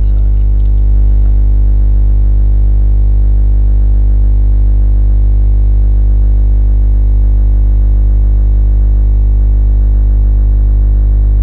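Background music: a loud, unchanging droning chord over a deep bass.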